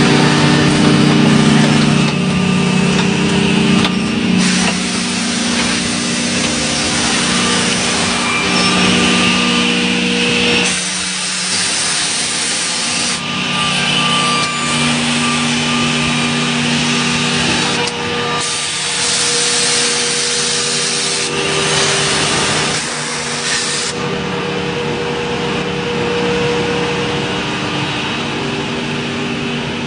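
CNC router cutting wood: a steady spindle tone over cutting and rubbing noise. The pitch and mix change abruptly several times.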